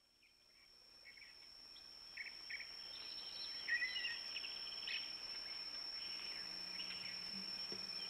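Outdoor nature ambience fading in: a steady high insect trill, with short scattered bird chirps over it.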